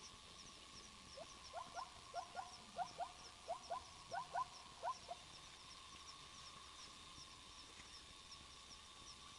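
Night-time bush ambience: an animal gives a series of about a dozen short, rising calls over roughly four seconds. Behind it runs a steady chorus of a high even tone and regular faint high ticks, several a second.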